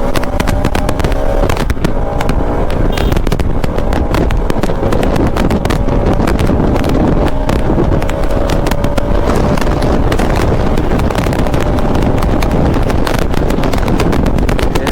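Motorcycle engine running at speed on the road, faint under heavy wind buffeting on the microphone.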